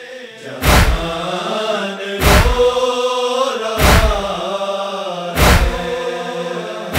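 A group of men chanting a noha lament in long held lines, kept in time by a heavy matam (chest-beating) thud about every one and a half seconds, four times.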